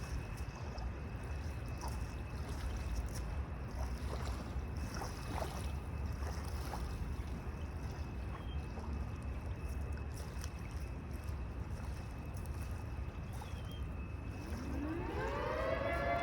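Steady low outdoor rumble with a few faint ticks. About a second and a half before the end, a siren starts winding up, its pitch rising and then holding as a steady wail.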